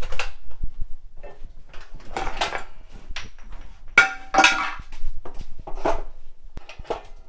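Wooden boards being handled on a clamping workbench: a run of knocks and clatters of wood against wood and the bench's metal frame, loudest about four seconds in.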